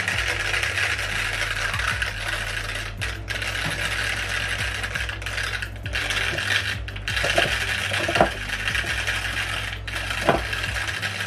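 Homemade magnetic stirrer, a PC power-supply fan spinning a magnet under a small plastic cup of liquid, running at full speed: a steady whir with a fast rattling clatter from the magnet, and a few sharper clicks in the second half.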